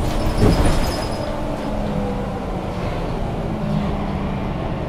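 Mercedes-Benz O530 Citaro Facelift city bus with ZF Ecomat automatic gearbox running, a steady engine drone. Less than a second in there is a short louder burst with a thin high squeal.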